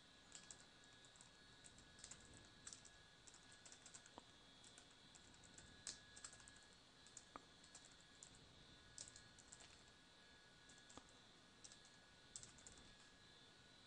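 Faint typing on a computer keyboard: short, irregularly spaced keystrokes as text is entered into form fields.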